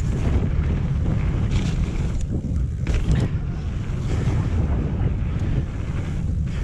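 Wind buffeting the action camera's microphone as the mountain bike speeds down a muddy trail, a steady heavy rumble, with a few knocks and rattles from the bike over rough ground about two to three seconds in.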